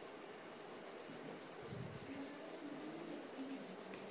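Faint scratchy rubbing of a cloth over a mobile phone's screen in quick repeated strokes, wiping away baking-soda paste.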